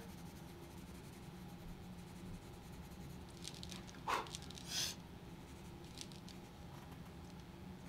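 Faint scratching of a colored pencil on pastel-covered paper in a quiet room, with a couple of short breath sounds about four and five seconds in.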